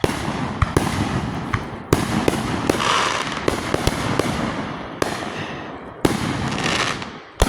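Fireworks going off: about five sharp bangs a second or two apart, with crackling and hissing between them.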